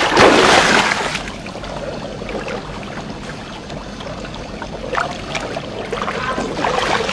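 Water splashing as people swim: a loud splash in the first second, then steady sloshing and lapping of water.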